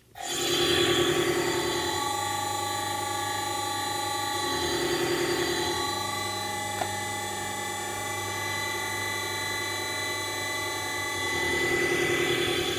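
Electric motor powered by a Mitsubishi D700 variable frequency drive, switched on from a three-wire start/stop pendant: an electrical whine made of several steady tones over a low hum, starting abruptly the moment START is pressed. A few of the middle tones shift and swell at intervals, and there is a single small click about seven seconds in.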